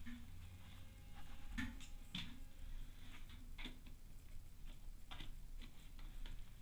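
Irregular light clicks and taps of plastic parts being handled, as the jammed drain pump of a washing machine is worked on by hand.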